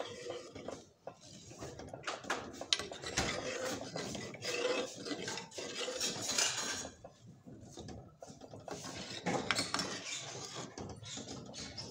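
Metal ladle stirring a chicken and potato curry in a steel pot, clinking and scraping against the pot in irregular knocks.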